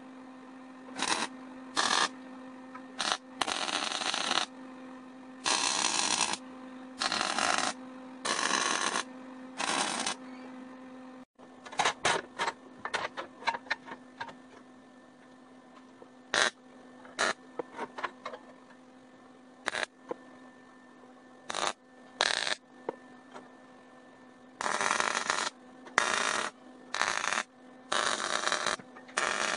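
MIG welder laying a series of tack welds on steel square tubing: repeated short bursts of the arc, some just clicks and others lasting about half a second to a second, over a steady hum.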